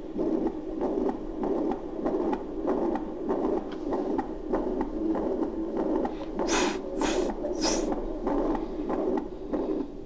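Recorded heart sounds of a mitral regurgitation murmur: a whooshing noise that swells with each heartbeat, about three beats every two seconds. A few short scratchy noises come about two-thirds of the way through.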